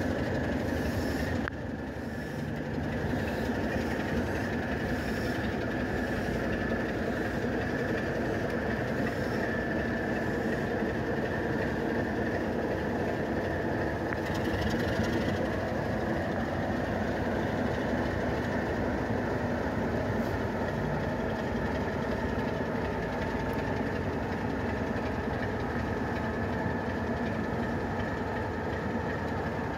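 Class 33 diesel locomotive's Sulzer engine running steadily as it slowly shunts a rake of steam locomotives, their wheels rolling over the rails.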